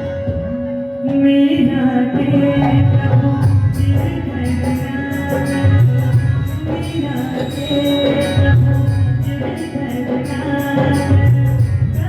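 Bhajan music: a hand drum and jingling percussion keep a fast, even beat under held melodic tones.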